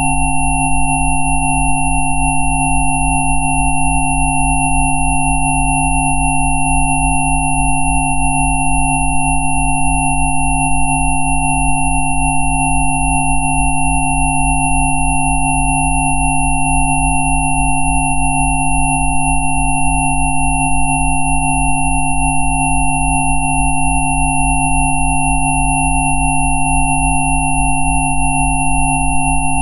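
Layered electronic sine tones, sold as Rife 'healing frequencies', held steady together. They run from a deep, quickly pulsing hum through mid tones up to a thin high whistle.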